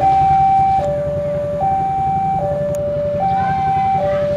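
Railway level crossing's electronic warning alarm sounding a two-tone high-low signal, each tone held about 0.8 s and alternating steadily. This is the warning that a train is approaching as the crossing barrier comes down. A low rumble of road traffic lies underneath.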